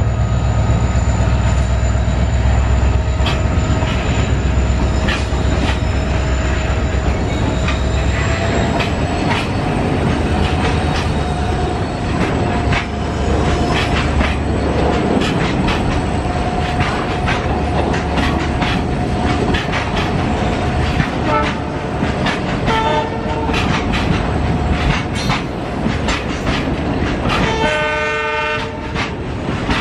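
Freight train of loaded LPG tank wagons running past. A heavy low rumble of the locomotive comes first, then the wheels clack steadily over the rail joints. A train horn sounds for about a second near the end.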